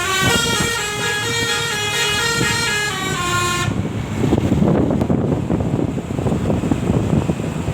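Bus 'telolet basuri' musical horn playing a tune of stepped notes, which cuts off suddenly about three and a half seconds in. Loud rumbling noise follows.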